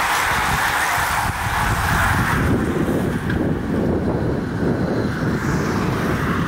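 Wind buffeting the microphone as a bunch of road-racing bicycles rides past. A steady hiss runs over the first two and a half seconds and cuts off abruptly, leaving an uneven low rumble.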